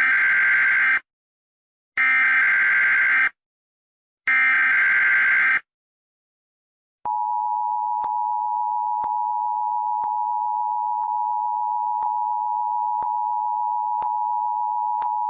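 Emergency Alert System tones: three one-second bursts of screechy SAME digital header data about a second apart, then, about seven seconds in, the steady two-tone EAS attention signal (853 and 960 Hz together) held for about eight seconds. Together they mark the start of an EAS alert.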